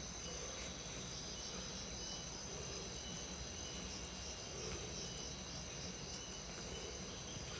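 Steady high-pitched chorus of insects, several shrill tones held without a break over a faint background hiss.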